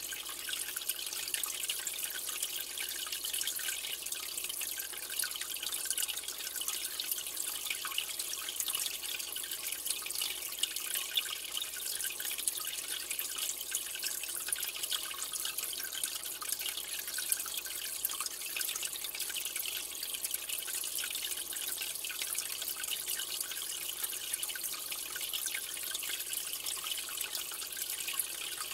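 Aquarium water trickling and bubbling steadily, a fine patter of tiny splashes over a constant hiss.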